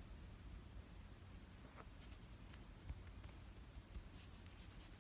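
Faint, rapid scratchy rustling of cloth and fur as a tabby kitten is stroked on a T-shirt, in two short spells about two seconds in and again near the end, over near silence.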